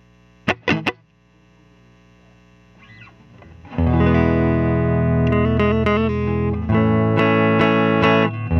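Electric guitar played through a Victoria Chicago-lux tube amp set relatively clean, dry with no reverb: two quick plucked notes near the start, then from about four seconds in loud sustained strummed chords, changing chord twice.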